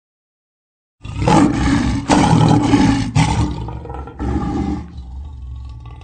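Lions calling: loud, rough calls start about a second in, a shorter call follows just after four seconds, and the sound then dies down to quieter rumbling.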